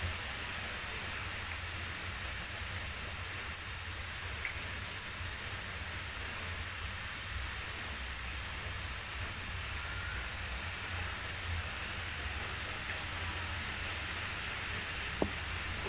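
Steady hiss with a low hum, no regular ticking to be heard, and one sharp click near the end.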